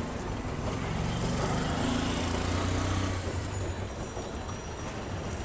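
A small motor engine running close by, growing louder from about a second in and fading again after about three and a half seconds.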